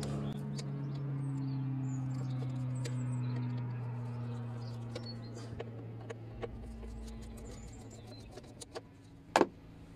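Scattered small clicks and taps of a screwdriver and metal hose clamps being worked, with one sharp click about nine and a half seconds in. Under them is a steady low hum that fades away over the first seven seconds.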